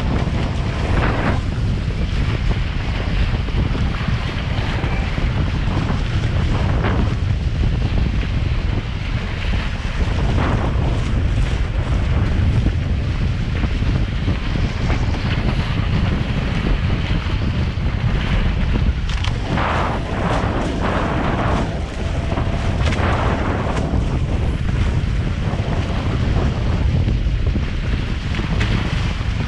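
Wind buffeting the microphone of a deck-mounted camera on a Hobie 18 catamaran sailing fast, with water rushing past the hull and bursts of splashing now and then.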